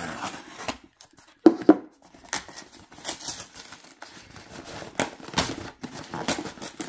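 A utility knife scrapes as it slices through a cardboard mailer. Two sharp knocks come about a second and a half in. Then the corrugated cardboard is torn open by hand in a series of short rips.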